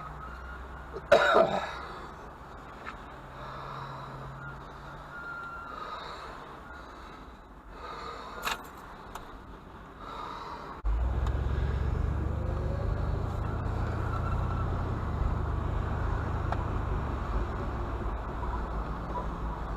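A loud sharp knock about a second in and a smaller one near eight and a half seconds. About eleven seconds in, a vehicle engine's steady low running starts abruptly.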